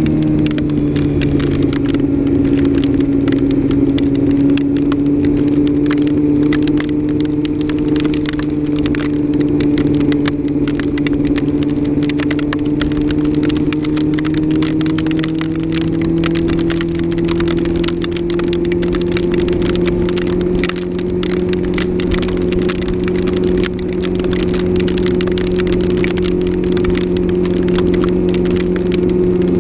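Yamaha R6 inline-four motorcycle engine running at steady road speed. Its pitch dips slightly in the first few seconds, then rises slowly. Constant crackling sounds over the microphone throughout.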